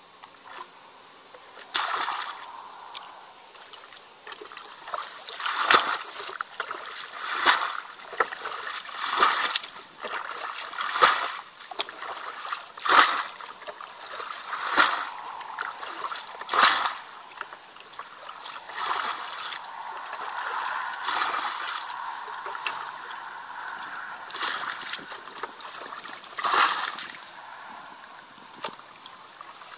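Plastic bucket bailing muddy water out of a shallow ditch: a splash about every two seconds as each bucketful is scooped and thrown. The splashes give way to a quieter, steadier water sound for a stretch, then one more splash near the end.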